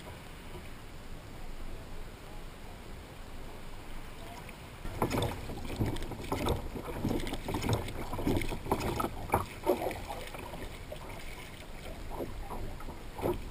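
Wind and water noise around a kayak on choppy water; from about five seconds in, water slaps and splashes irregularly against the hull close by.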